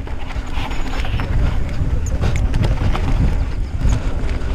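Wind buffeting the action camera's microphone as a mountain bike rolls down dirt singletrack: a steady low rumble of wind and tyres on dirt, with scattered sharp clicks and rattles from the bike over rough ground.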